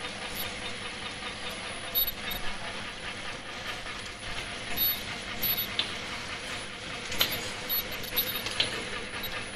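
Elastic ear-loop mask-making machine running: a steady mechanical hum and hiss with a faint steady tone, broken by irregular sharp clicks and clacks, the loudest about seven seconds in.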